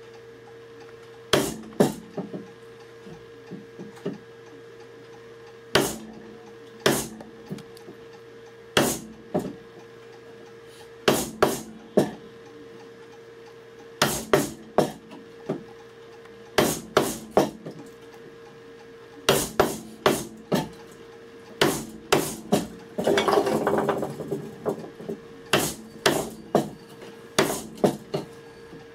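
A wood chisel being hammered into a hardwood stool seat to chop a mortise: sharp knocks in clusters of two to four strikes with short pauses between, and about a second of scraping a little over three quarters of the way through. A faint steady hum sits underneath.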